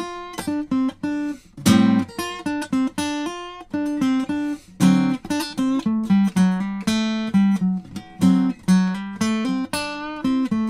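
Cutaway acoustic guitar played alone, improvising single-note blues licks over an Am7–D7 progression: runs of quickly picked notes broken by a few held notes and short pauses.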